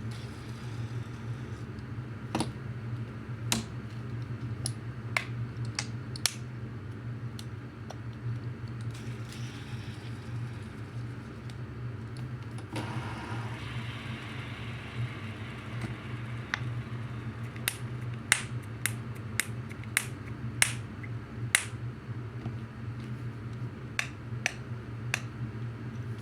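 Small spinner popper fidget toy being pressed and popped: sharp, irregular clicks, closer together and louder in a run near the end, over a steady low hum.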